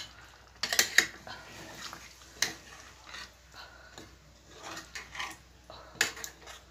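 Steel spatula knocking and scraping against a cooking pan while stirring chicken curry, in a few separate clinks a second or more apart.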